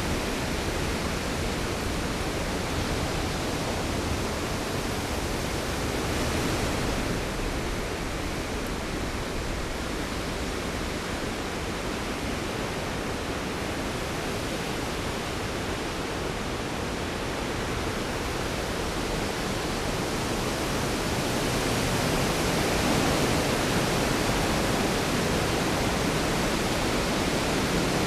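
Storm sound effect: a steady, dense rush of heavy rain with no thunderclaps, swelling a little louder about three-quarters of the way through.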